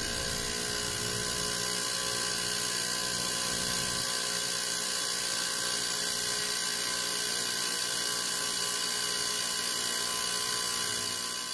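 Bako BK-3550 ultrasonic cleaner running with metal regulator parts in its water bath: a steady hum of many tones with a strong high hiss over it.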